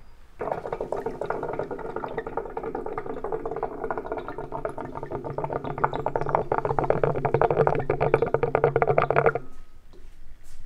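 Shisha water pipe bubbling as someone draws on the hose: a rapid, continuous gurgle of smoke through the water in the base. It lasts about nine seconds, gets louder toward the end and stops abruptly.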